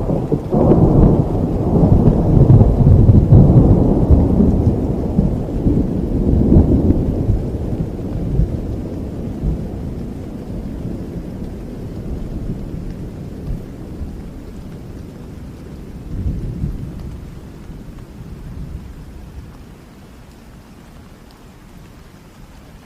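Heavy rain with a long, rolling thunder rumble. The thunder is loudest in the first few seconds and then slowly dies away, with a smaller swell about two-thirds of the way through, leaving the steady rain.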